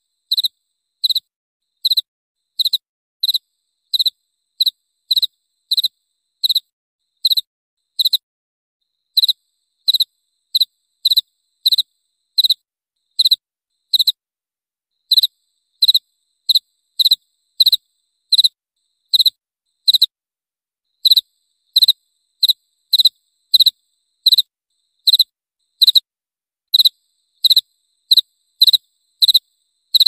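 A cricket chirping: short high-pitched chirps about two a second, with a few brief pauses in the rhythm.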